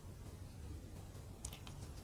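Mini plastic building bricks clicking faintly as they are handled and pressed together, a few small clicks about one and a half seconds in, over a low steady room hum.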